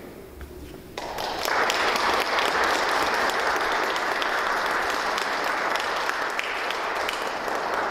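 Audience applauding, starting about a second in, quickly building to full strength and then holding steady.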